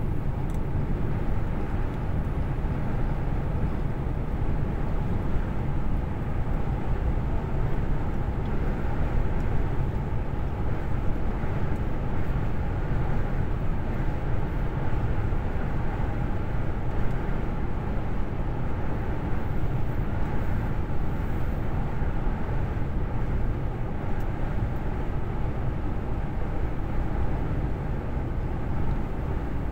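Steady low rumble of a lorry cruising at motorway speed, engine and tyre noise heard from inside the cab.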